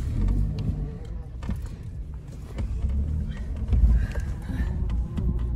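Car driving, heard from inside the cabin: a steady low engine and road rumble with scattered small knocks and rattles.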